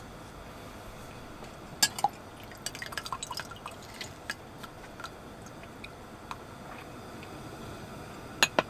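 Light clinks and ticks of tableware, with dripping liquid: two sharp clicks about two seconds in, a quick run of small clinks just after, scattered lighter ticks, and two louder clicks near the end.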